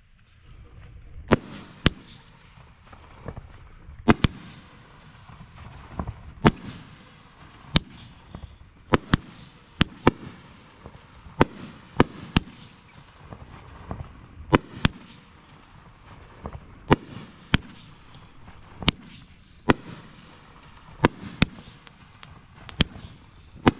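A 2-inch nishiki kamuro firework cake firing, shot after shot. The sharp bangs come irregularly, about one a second and some in quick pairs, each with a short fading echo.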